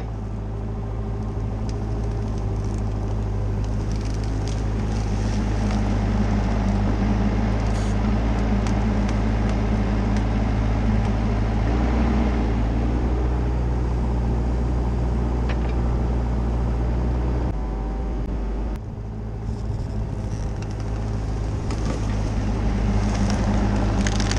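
CAT 304CR mini excavator's diesel engine running steadily under load while the machine drags a log in on a rope. The engine note shifts about halfway through, drops back briefly about three-quarters of the way in, then picks up again.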